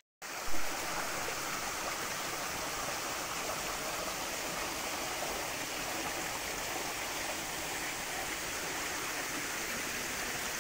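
Steady, even rush of running water from a small waterfall.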